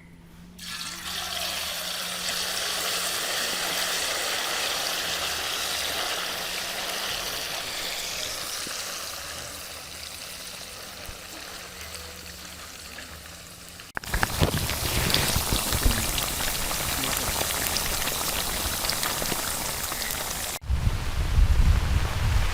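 Masala-coated fish sizzling in hot oil, the sizzle starting about a second in as the fish go into the oil and slowly dying down. About fourteen seconds in it cuts to a steady hiss of rain falling, with a low rumbling near the end.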